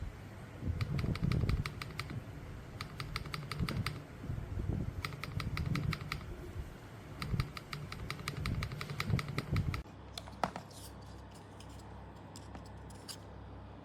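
Mechanical keyboard fitted with Gateron linear switches being typed on, in quick bursts of seven or eight keystrokes about every two seconds. About ten seconds in the sound changes to fainter, scattered clicks.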